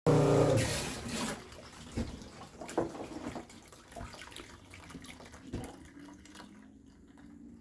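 RV antifreeze running and splashing out of a hose line into a bottle, loudest at the start and fading after about a second, with scattered clicks.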